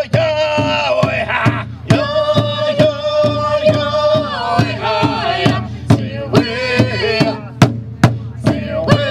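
Native American intertribal drum song: a drum struck steadily about twice a second under a group of men and a woman singing together, with a high lead voice.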